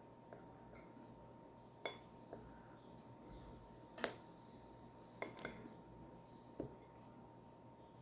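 Cutlery clinking against a dish as someone eats rice: a few short, irregular clinks, the loudest about four seconds in.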